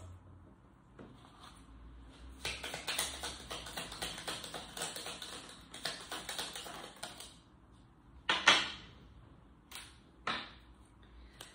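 A deck of tarot cards being shuffled by hand: a rapid run of small flicking clicks for about five seconds. This is followed by two louder single swishes of cards, the first about eight seconds in and the second about two seconds later.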